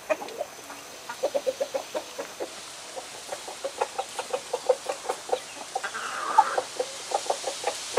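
Chickens clucking: a run of short, low clucks, several a second, with one louder, harsher call about six seconds in.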